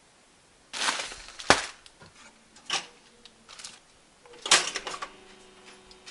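Handling noises: a few rustles and sharp knocks. Then bread slices are dropped into a four-slice stainless steel toaster and its lever is pushed down with a loud clack about four and a half seconds in, followed by a faint steady hum as the toaster starts heating.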